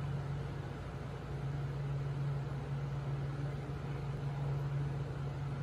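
Aquarium pump humming steadily with a low drone and a light hiss over it.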